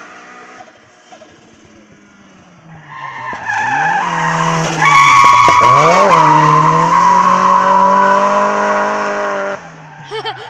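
V8 hillclimb car coming up at high revs and drifting through the bend with tyre squeal. Its note dips and climbs twice around the corner, holds high, then drops away suddenly near the end.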